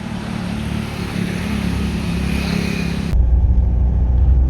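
Mahindra XUV700 on the road: a steady hiss with a low engine drone, then an abrupt change about three seconds in to a deeper, louder rumble of the car driving.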